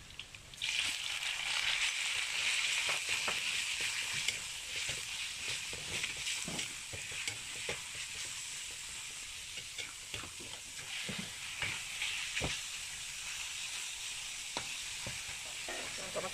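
Food sizzling in hot oil in a pan, starting suddenly about half a second in as the food goes into the oil, loudest for the first few seconds and then settling to a steady sizzle. Scattered knocks of a utensil stirring in the pan run through it.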